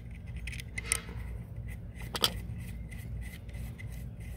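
Small metal carburetor parts being handled and fitted by hand: light rubbing and scraping with scattered small clicks, two of them sharper about one and two seconds in, over a steady low hum.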